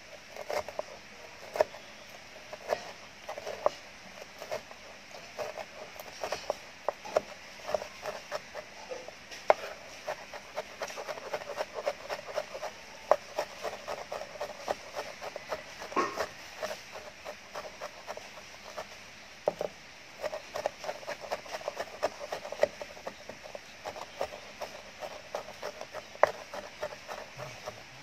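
Large cleaver-style knife mincing lemongrass on a wooden cutting board: quick, uneven knocks of the blade striking the board, with short pauses between runs.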